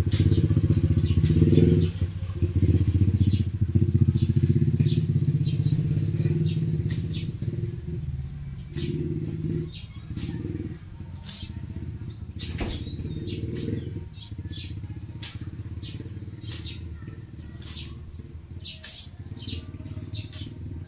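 A small engine runs loud for the first several seconds, then drops lower and comes and goes in shorter spells. A bird gives a quick rising series of chirps twice, and scattered sharp ticks sound throughout.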